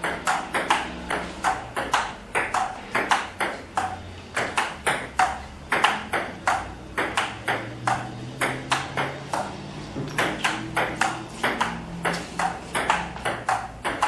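Table tennis rally: a celluloid ping-pong ball clicking back and forth off the paddles and the table in a quick, even rhythm, about three to four hits a second.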